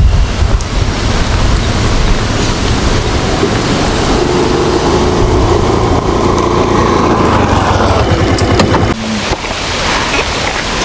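Motor scooter's engine running as it rides closer over a dirt track, heavily buried under wind rushing on the microphone. About nine seconds in the noise drops off suddenly.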